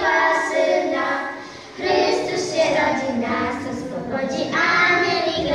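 A small group of young girls singing a Christmas carol together into a microphone, with a brief pause about one and a half seconds in.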